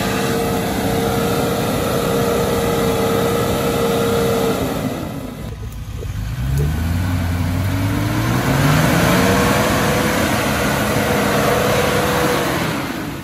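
A 4x4's engine running under load with a steady high whine. It eases off about five seconds in, then revs back up, rising in pitch, and holds before dropping off near the end.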